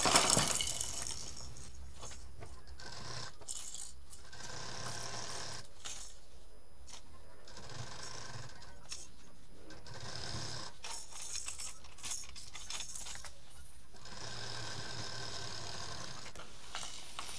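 Sewing machine stitching quilted fabric in several short runs with brief pauses between. A short rustle and rattle of fabric and plastic toys comes at the very start.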